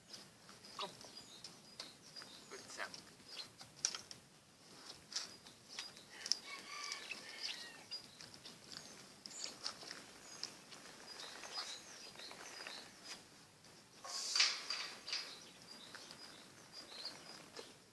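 Tibetan mastiff puppies scrambling over stone paving and tiles, making scattered scratches and taps, with small birds chirping in the background. A louder scuffle comes about 14 seconds in.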